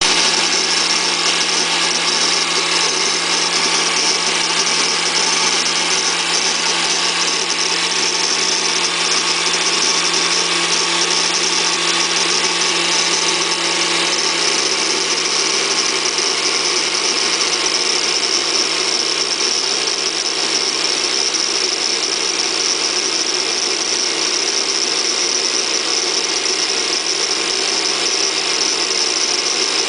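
Bosch angle grinder mounted on a small lathe, running steadily with its wheel grinding a hardened steel ball screw that the lathe turns against it. It is a constant, even whine with a grinding hiss, and it does not change.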